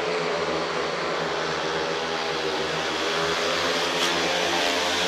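Speedway motorcycles racing flat out, their 500 cc single-cylinder methanol engines giving a steady, high-revving engine note that swells a little in the second half.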